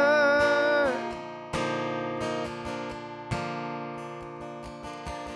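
Live worship band music: a held sung note ends about a second in, then acoustic guitar strums twice over sustained chords that slowly fade down.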